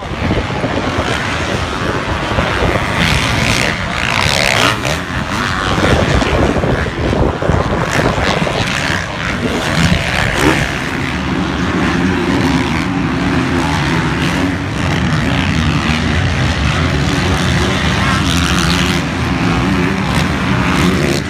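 Motocross race bikes' engines revving hard and rising and falling in pitch as riders climb and jump the dirt track. From about halfway through, a steadier engine tone holds underneath.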